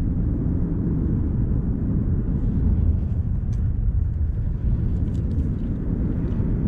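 A steady low rumble throughout, with a few faint clicks about halfway through and again a little later as a fishing reel is handled.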